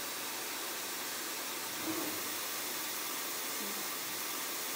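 Steady, even hiss of a machining centre running while a tap backs out of a threaded hole in steel. It does not change as the tap leaves the hole.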